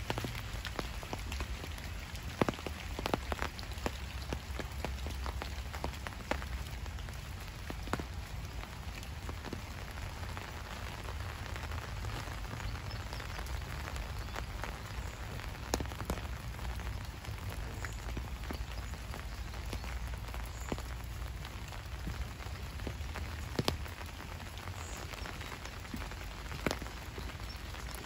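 Steady rain falling, with many sharp, scattered drop ticks over an even hiss and a low rumble underneath.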